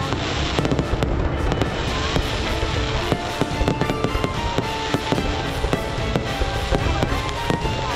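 Aerial fireworks bursting: a dense, continuous barrage of bangs and crackles in quick succession, with a low rumble under them.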